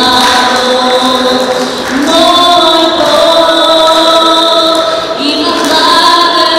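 A group of voices singing together in long held notes, moving to a new note about two seconds in and again a little after five seconds.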